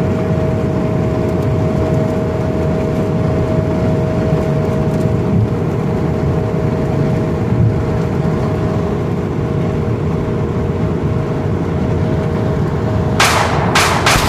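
Steady road rumble from inside a moving vehicle, with a faint steady whine that drops out about two-thirds of the way through. A few short sharp hissing bursts cut in near the end.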